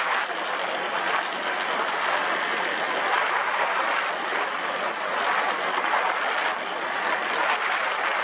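ATV under way: a steady rushing noise of the ride, with the engine running underneath.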